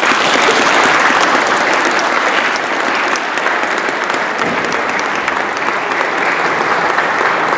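Church concert audience applauding: steady, dense clapping from many people that begins just as the music ends.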